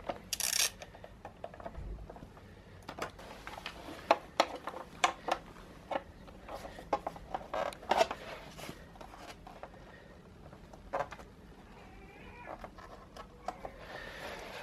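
Hand-tool work on a motorcycle windscreen bracket: a ratchet screwdriver rasping briefly near the start, then irregular clicks and taps of small screws, the tool and the plastic bracket being handled.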